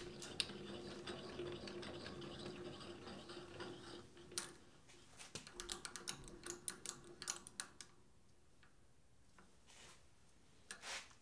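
A small lathe's carriage traversing along the bed, heard as a faint steady whir with a held hum for about four seconds. This gives way to a run of light metallic clicks and taps as the dial indicator on its magnetic base is handled, then a short rustle near the end.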